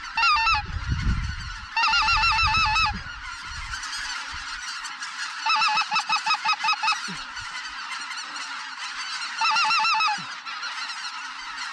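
A large flock of Canada geese honking as it approaches. Over the steady din come four loud bursts of rapid clucking honks close by.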